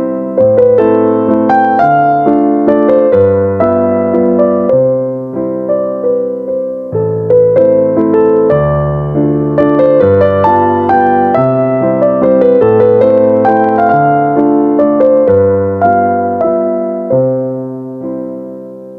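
Background piano music: a gentle melody of single struck notes over sustained chords, fading out near the end.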